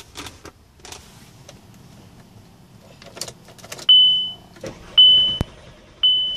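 Electronic beep, one high steady tone about half a second long, repeating roughly once a second from about four seconds in. Before it come a few clicks and some handling noise.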